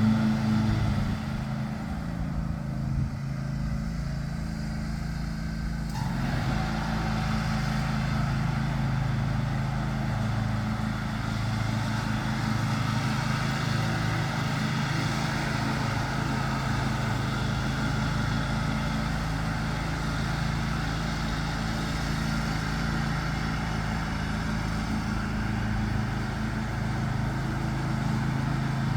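John Deere X500 riding lawn tractor running steadily while mowing, its engine a continuous drone; about six seconds in there is a brief click and the sound becomes fuller and brighter for the rest of the stretch.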